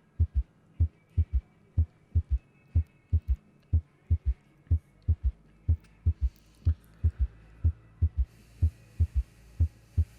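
Recorded heart auscultation of a ventricular gallop (S3 gallop): dull, low thumps in galloping groups of three, S1 and S2 followed closely by a third heart sound from rapid ventricular filling, about one cycle a second. The third sound is pathological, the sign of underlying heart disease.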